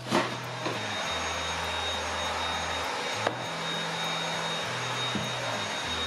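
A small electric motor switches on just after the start and runs steadily with a high whine. Soft background music with slow, held bass notes plays underneath.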